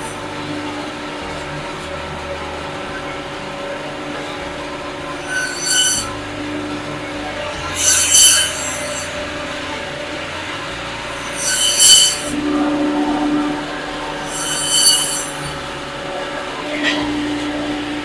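Meat band saw running with a steady motor hum, its blade screeching loudly for about a second at a time as it cuts through bone-in goat meat. There are four loud cuts spaced a few seconds apart and a fainter one near the end.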